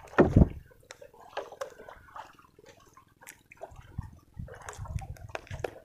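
Handling noise from a camera rubbing against clothing: scattered rustles, light clicks and a few low thumps.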